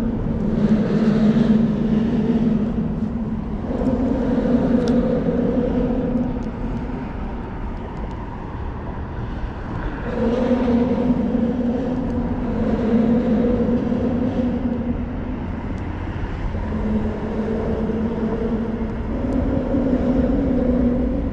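Engine drone from passing motor traffic: a low rumble under a humming tone that swells and fades every two to three seconds.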